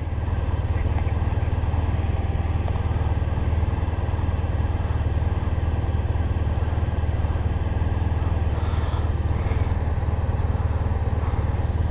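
Motorcycle engine running steadily under way, heard from the rider's own bike, with a constant low hum and road and wind noise.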